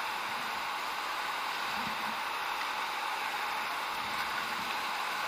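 Rushing whitewater of a large river rapid: a steady, even rush of water with no breaks.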